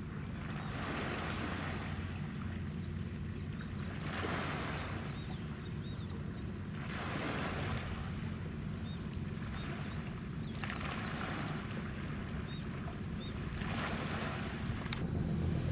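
Small waves washing against the rocky shore about every three seconds, over a steady low rumble, with faint high chirps scattered through.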